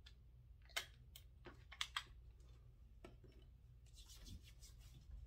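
Faint handling noises: a few light clicks from a glass dropper bottle of hair oil being handled and capped, then a brief rustle of hands scrunching the oil into curly hair about four seconds in.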